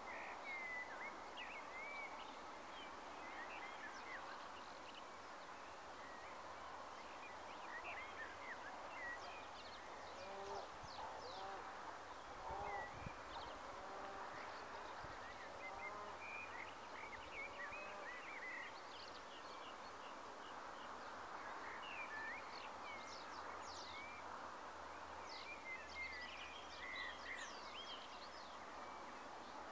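Faint outdoor birdsong: many short chirps and whistles from several birds over a steady background hiss, with a run of lower calls in the middle.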